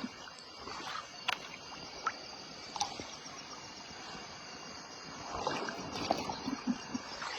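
Shallow stream water running steadily, with a few small sharp clicks and splashes of someone wading. About five seconds in, water sloshes more, as feet or hands move through it.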